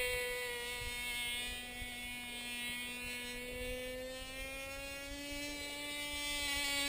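Cox two-stroke glow engine on a homemade flying-wing model plane buzzing steadily in flight, a high drone. It dips slightly in loudness, then rises a little in pitch and grows louder toward the end as the plane comes closer.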